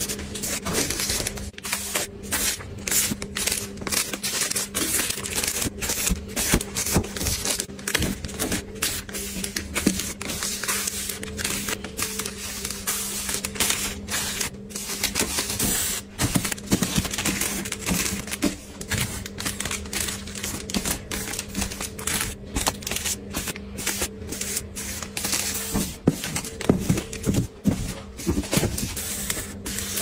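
Plastic-wrapped packs of facial tissues being set down and stacked on a shelf: a quick, continuous run of soft taps and wrapper rustles, over a steady low hum.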